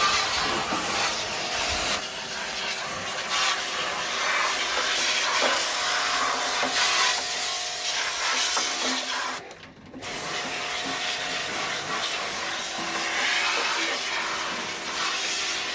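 A machine motor running steadily under a constant hiss while washing-machine parts are being cleaned. The sound cuts out briefly about halfway through, then resumes.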